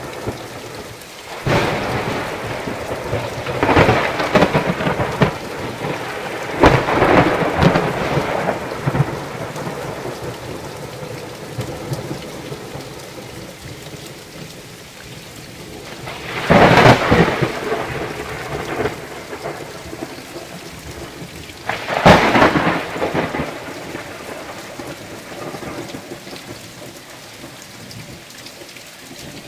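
Heavy thunderstorm rain falling steadily, broken by about five loud claps of thunder that strike suddenly and die away over a second or two; the two sharpest come about 17 and 22 seconds in.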